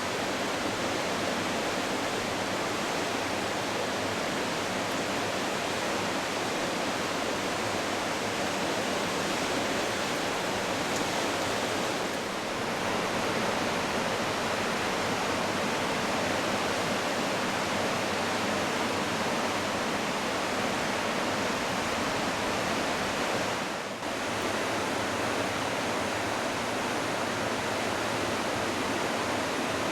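The Smith River in flood: a steady, dense rush of fast, high water, dipping briefly twice.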